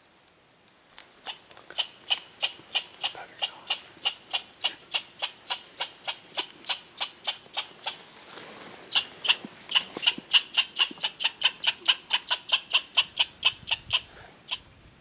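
An animal giving a long run of short, sharp, high calls, about three or four a second. The calls pause briefly in the middle, then resume a little faster.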